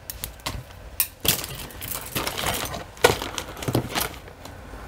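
Metal jewelry pieces clinking and rattling as they are handled and set down. A string of irregular clicks, the sharpest about a second in and again around three seconds in.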